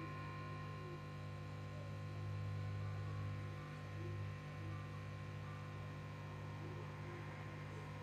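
Steady low electrical hum with several faint steady tones above it, swelling slightly a few seconds in.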